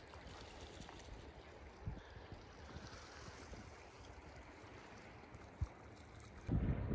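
Faint steady wash of seawater along the shore, with two light knocks. Near the end a louder low rumble sets in.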